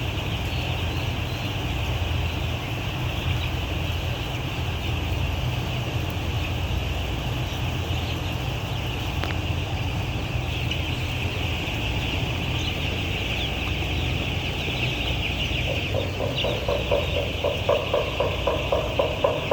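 A flock of chickens clucking and chattering over a steady low hum. Near the end a rhythmic mechanical clatter starts, about two or three beats a second.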